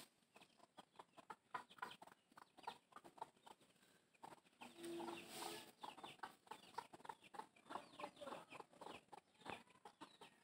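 Chickens clucking faintly in short notes, with one longer call about five seconds in.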